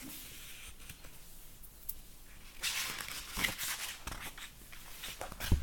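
Paper rustling as the pages of a hardcover picture book are handled and smoothed, loudest from about two and a half to four seconds in, with a soft thump near the end.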